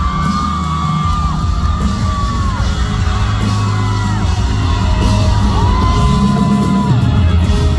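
Live pop-rock concert heard from the audience: a voice holds several long high notes, each falling away at its end, over a loud band with heavy bass.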